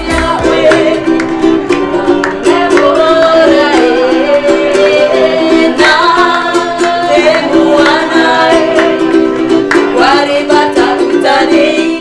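Ukulele strummed in a steady rhythm while women sing a melody over it.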